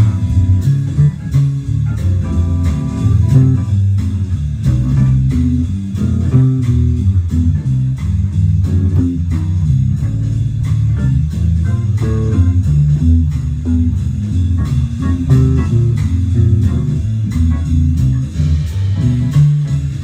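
Bluesy guitar music led by a plucked bass line, with steady rhythmic picked notes.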